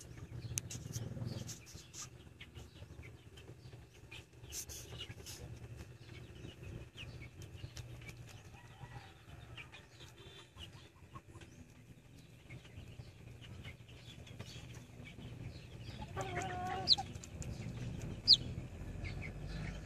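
Steady low hum of the incubator with faint scattered clicks. Near the end come a short call and two sharp, high, falling peeps from a hatching chick.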